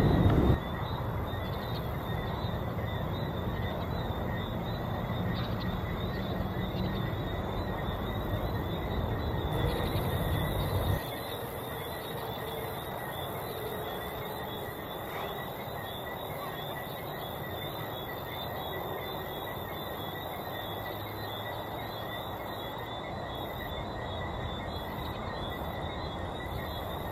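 Distant rumble of a departing four-engine Boeing 747-400 jet climbing away, with a heavy low rumble that drops away abruptly about eleven seconds in, leaving a fainter steady roar. Insects chirr steadily at a high pitch throughout.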